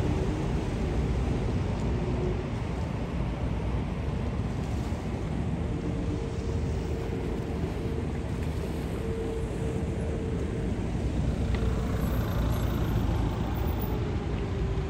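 Steady low rumble of motor traffic with a steady engine hum. Near the end, a car's engine comes close with a slowly shifting pitch.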